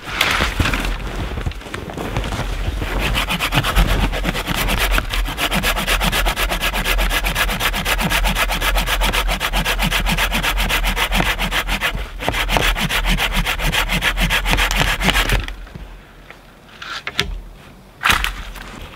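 Hand pruning saw cutting through a dead branch in quick, even back-and-forth strokes. The strokes pause briefly about twelve seconds in, stop about fifteen seconds in, and are followed by a couple of short knocks.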